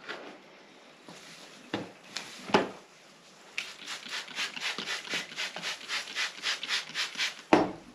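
Two separate knocks, then a run of rhythmic scraping strokes, about five a second, as soil is raked out of an azalea's root ball.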